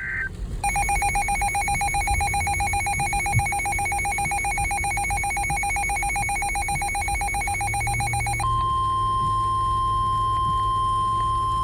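A NOAA weather radio's alert alarm: a fast, warbling two-pitch beeping for about eight seconds. Then the single steady tone of the Weather Radio warning alarm takes over, the signal that a warning is about to be broadcast.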